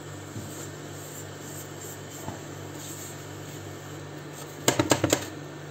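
A silicone spatula stirring dry, toasting ground spices around a non-stick frying pan over a steady low hum. Near the end comes a quick clatter of several sharp knocks of the spatula against the pan.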